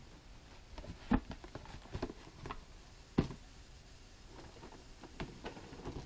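Cardboard figure boxes being handled and set down: a scatter of knocks and light taps, the two loudest about a second in and about three seconds in.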